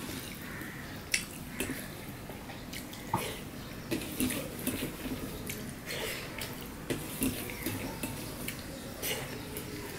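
Fingers mixing and mashing rice and curry on a stainless-steel plate. It sounds as wet squishing, with irregular sharp clicks and taps as the fingers and food hit the metal.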